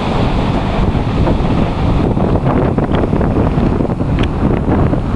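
Wind buffeting the microphone, a loud, uneven low rumble, with sea surf washing beneath it.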